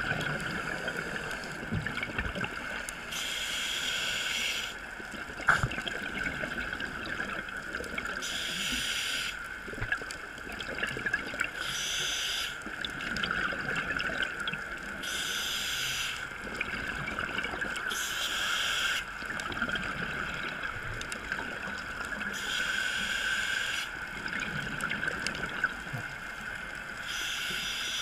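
Scuba diver's breathing through a regulator, recorded underwater through the camera housing: a bubbly hiss of exhaled bubbles comes about every three to five seconds, each lasting about a second, over a steady hum.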